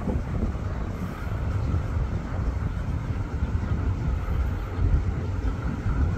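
Transnet Class 35 diesel-electric locomotives idling: a steady low engine rumble.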